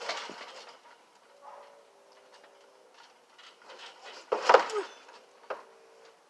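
Knocks and thumps of a person climbing onto a plastic toy picnic table that stands on a trampoline mat. There is a sharp knock at the start, a louder cluster of knocks about four and a half seconds in, and one more knock about a second later.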